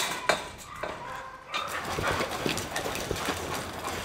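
Several gun dogs scrabbling and jostling on a barn floor: a busy patter of paws and claws that starts about a second and a half in, after a couple of sharp knocks.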